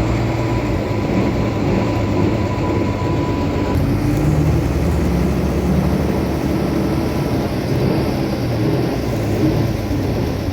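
Motor vehicle on the move in road traffic: an engine running with road noise, its pitch shifting slowly. A thin, steady high tone sounds over it and stops about four seconds in.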